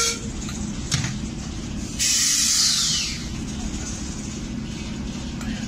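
Class 08 diesel shunter D3937's English Electric six-cylinder engine running with a low steady rumble as the locomotive pulls slowly away. A sharp click comes about a second in, and a loud burst of hissing air about two seconds in lasts about a second.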